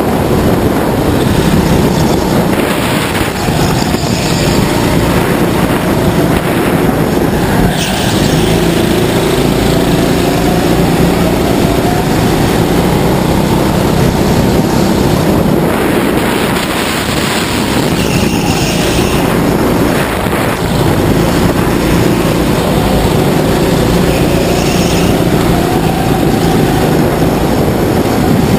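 Go-kart engine running hard, heard from the driver's seat, its pitch falling and rising again several times as the throttle is lifted and reapplied through the corners.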